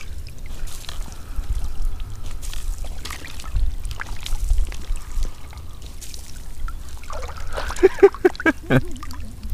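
Water sloshing and trickling around an angler wading chest-deep in a reservoir, with a low rumble and small scattered clicks. About three-quarters of the way through, a person's voice sounds briefly in a quick run of pulses.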